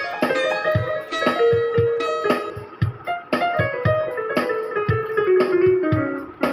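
Music: a plucked, guitar-like melody over a steady drum beat, with a run of notes falling in pitch near the end.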